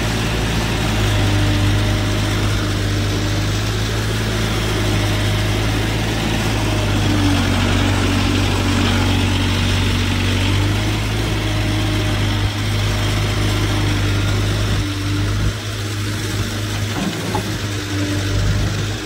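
Case 770EX backhoe loader's diesel engine running steadily while the boom swings and the bucket loads mud into a tractor trolley. About fifteen seconds in, the deep engine note thins and the sound dips slightly.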